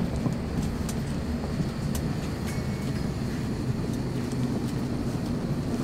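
Steady low rumble and hum of a vehicle interior, with occasional faint clicks and rattles.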